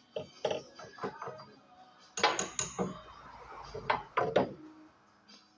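Metal tools and parts clinking and clattering as they are handled and set down on a workbench, in several short clusters; the loudest clatter comes about two seconds in, and another near four seconds.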